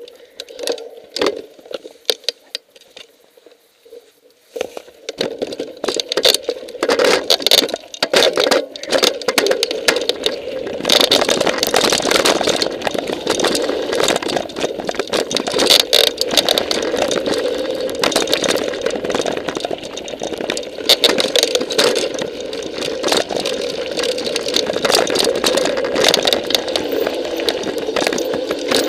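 Mountain bike riding over a rocky dirt trail, heard from a camera mounted on the bike or rider: tyres running on gravel and the bike and camera rattling with many small knocks over the rocks. Quieter for the first few seconds, then steady and loud from about five seconds in.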